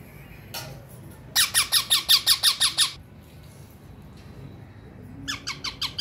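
Young green parakeets squawking: a rapid run of about ten harsh calls, some seven a second, beginning about a second and a half in, then a shorter, softer run of about five calls near the end.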